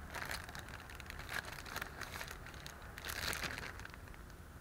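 Clear plastic bag around a new cabin air filter crinkling as the filter is handled and turned over, in short irregular rustles.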